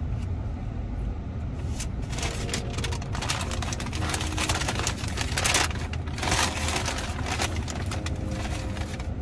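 Paper food bag rustling and crinkling in bursts, over the steady low hum of the car cabin.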